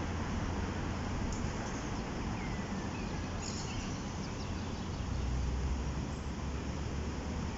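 Steady rushing noise of river water, with wind rumbling on the microphone that swells about five seconds in, and a few faint bird chirps.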